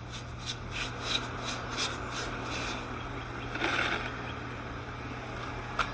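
Hand-tool rubbing or scraping: a run of quick repeated strokes, then steadier rubbing, over a low steady hum.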